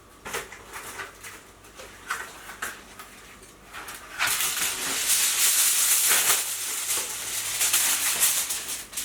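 Aluminium kitchen foil crinkling as it is wrapped around jacket potatoes: a few scattered crackles at first, then from about four seconds in a dense, continuous crinkling.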